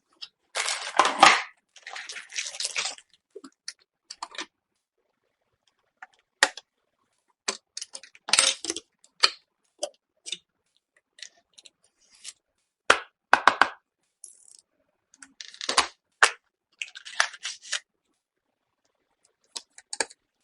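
Close-miked handling of computer parts and packaging: scattered clicks, taps and short rustles, with dead silence between them.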